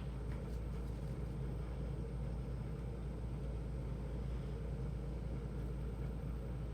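Steady low background hum and rumble, unchanging throughout, with no distinct events.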